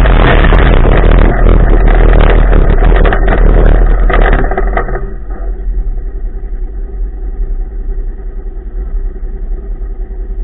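Polaris RZR side-by-side running hard on a dirt track, its engine mixed with loud wind and gravel noise. About four and a half seconds in this drops away to a quieter, steady idle as the machine comes to a stop.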